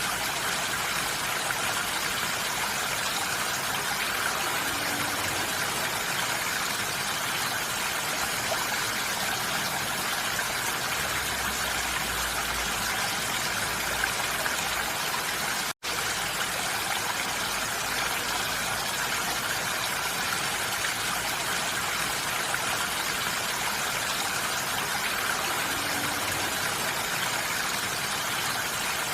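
Steady rain falling on a roof, an even continuous patter. The sound drops out for an instant a little past halfway.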